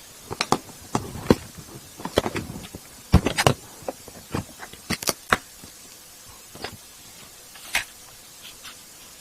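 A run of irregular clicks and knocks, closely bunched in the first half and sparser towards the end.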